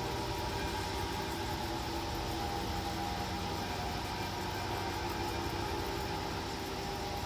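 Bench grinder motor running steadily with no load on the wheel, a constant hum.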